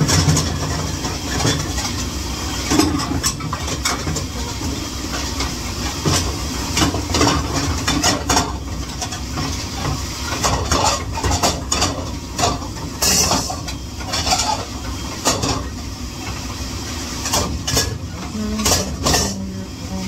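Dishwashing in a kitchen: a steady hiss of running water or a dish machine, with frequent irregular clinks and clatters of dishes.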